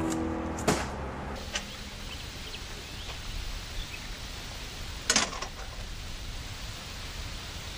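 Steady outdoor ambience, a low hiss, with background music fading out at the very start. A single short noisy knock or rattle stands out about five seconds in.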